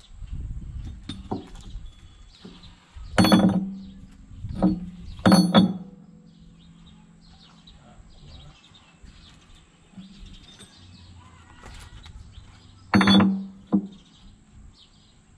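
Steel excavator bucket teeth being slid onto the bucket's tooth adapters: a few sharp metal-on-metal clanks with a brief ring, in a cluster a few seconds in and again near the end.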